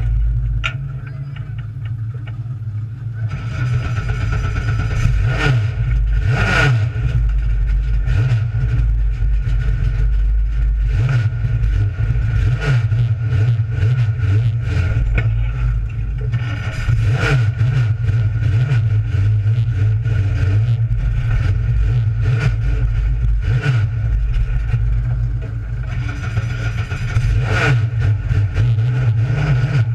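Race car engine idling with a loud, steady low rumble, heard from inside the cockpit, with a few brief revs.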